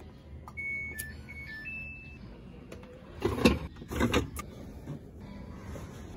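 Samsung top-load washing machine's control panel sounding a short run of electronic beeps at changing pitches as its buttons are pressed, followed about three seconds in by loud plastic clattering and rustling as the detergent drawer is handled.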